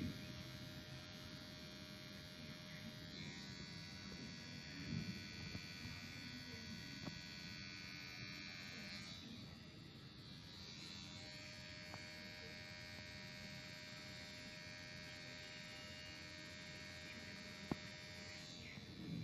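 Kemei KM-2850 electric hair clipper running with a steady buzz, fading briefly about halfway through.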